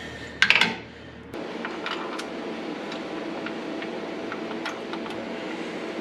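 A wire brush scrubs briefly against the steel frame rail. Then a steady hum runs on, with a few light metal clicks as a steering-box bolt is fitted through the frame.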